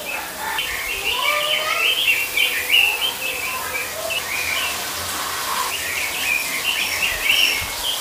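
Caged songbirds chirping and twittering without a break, with a few clear, longer whistled notes lower down.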